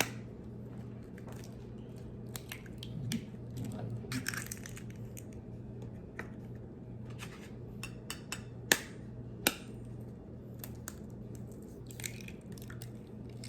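Scattered clicks and knocks of kitchen items being handled during cooking preparation, with two sharper clacks a little after halfway. A low steady hum runs underneath.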